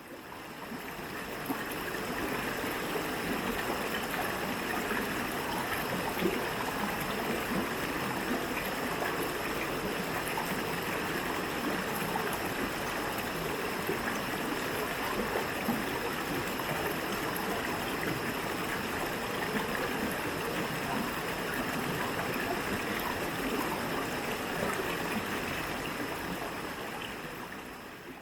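Water rushing and splashing at a waterfall, a steady noise that fades in at the start and fades out at the end.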